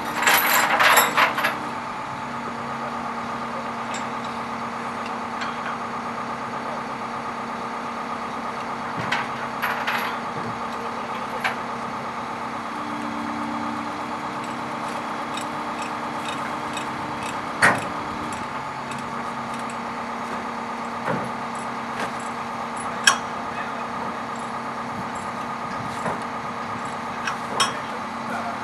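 Heavy truck's diesel engine idling steadily, with a cluster of sharp knocks at the start and a few single sharp knocks spread through the rest.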